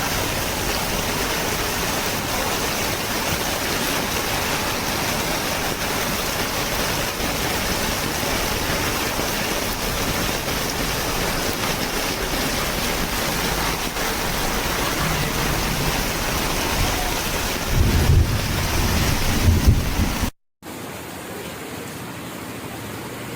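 Heavy rain pouring steadily, with a few deep rumbles a little before the end. After a brief cut the rain hiss goes on more quietly.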